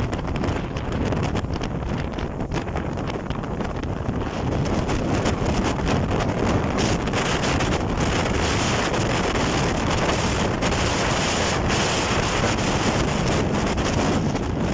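Wind buffeting the microphone over the rush of choppy water past a small boat underway. The water hiss gets louder about halfway through.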